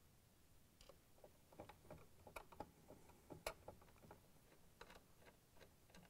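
Faint, irregular clicks and ticks of a Phillips screwdriver driving screws into the metal top cover of a KitchenAid stand mixer.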